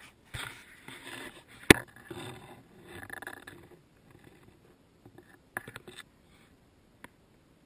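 Close handling noise on an action camera: rustling and scraping as something rubs over the housing, with one sharp knock about 1.7 s in and a few lighter clicks and knocks later on.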